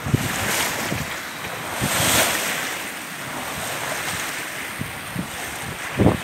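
Wind and sea rushing past a sailing yacht under sail, with wind buffeting the microphone in low thumps, the loudest near the end. The wash of water swells up about two seconds in.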